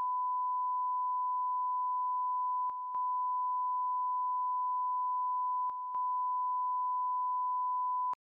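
Censor bleep: one steady pure tone held for about eight seconds, broken off briefly twice, around three and six seconds in, then stopping suddenly.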